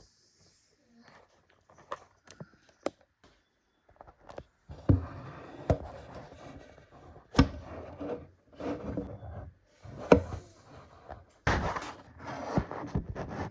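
Wooden furniture parts being handled during assembly: a few faint clicks, then from about four seconds in a run of sharp wood knocks with shuffling and rubbing between them.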